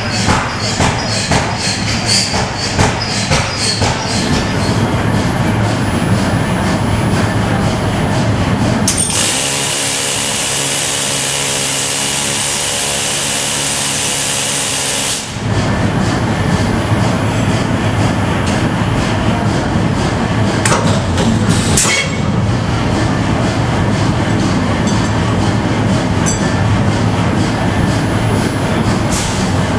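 Forge-shop machinery: a quick run of sharp knocks for the first few seconds, then steady machine noise. Partway through, a loud steady hiss with a low hum comes in while a glowing bar end is forged in a heavy forging machine, and it cuts off abruptly. Later come a couple of sharp metallic knocks over the ongoing machine noise.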